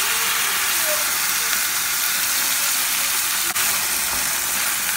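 Loud steady sizzling as crushed tomato hits a hot stainless-steel pan of frying green beans and is stirred in with a wooden spoon. There is one sharp click about three and a half seconds in.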